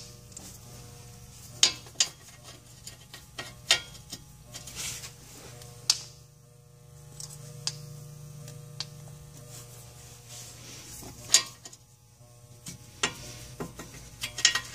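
Irregular sharp metal clinks and clicks of sockets being handled and tried on a brake caliper bolt to find the right size, over a low steady hum.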